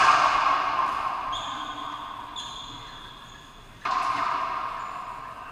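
Racquetball struck hard with a racquet twice, about four seconds apart. Each crack rings out with a long echo that fades slowly in the enclosed court. Between the shots come short high squeaks, like shoes on the hardwood floor.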